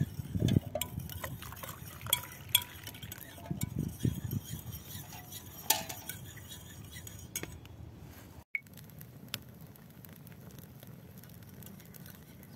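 Metal teaspoons clinking against enamel mugs as tea is stirred: several sharp clinks in the first six seconds. About eight and a half seconds in the sound cuts out for an instant, and a quieter background follows.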